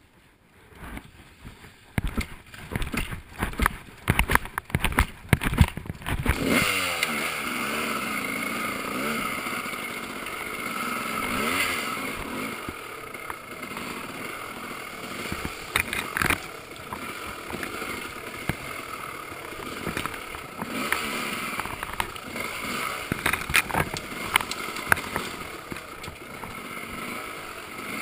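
A run of irregular clattering knocks, then a dirt bike engine starts about six seconds in, revs and keeps running, its pitch rising and falling with the throttle.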